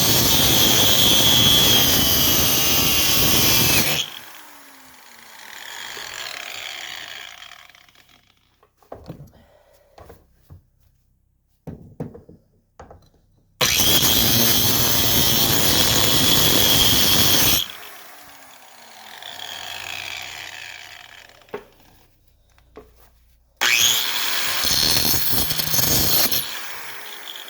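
A handheld power tool cutting or grinding the exhaust pipe in three runs of about four seconds each. Each run is loud with a high whine and winds down with a falling pitch after the trigger is released. Light knocks and clinks of handling fill the pauses between runs.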